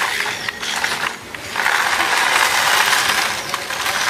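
Battery-powered remote-control toy car's small electric motor and plastic gears whirring; it stops about a second in and starts again half a second later.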